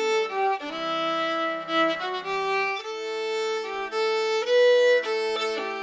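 Instrumental background music of slow, held notes, several sounding together and changing about once a second.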